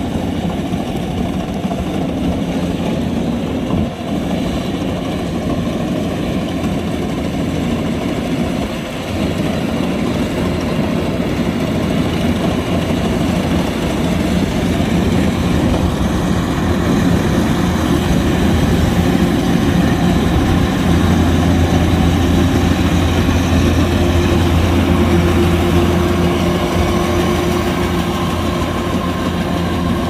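Kubota DC-105X combine harvester running, a steady diesel engine hum with machinery noise, getting louder about ten seconds in.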